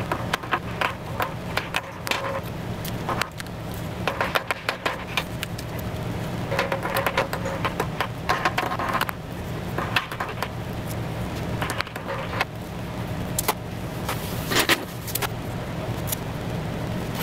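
Masking tape pulled off the roll and torn in short rasps, with light clinks, as the engine is masked off for paint, over a steady low hum.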